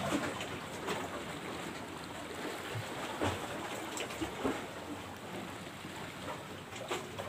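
Sea water lapping against a rocky shore under steady outdoor wind noise, with a few light clicks and knocks from fishing tackle being handled.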